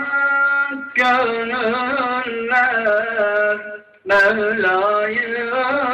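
A man chanting an Islamic religious recitation alone into a microphone, without accompaniment, in long ornamented melismatic phrases, with short breaths about a second in and about four seconds in.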